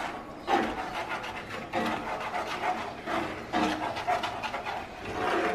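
A spoon stirring and scraping a sauce simmering in a cast-iron skillet, in repeated noisy strokes.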